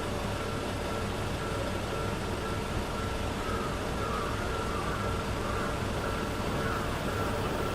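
Railroad crossing warning bell ringing in a steady repeating pattern over a constant rumble of traffic and trains.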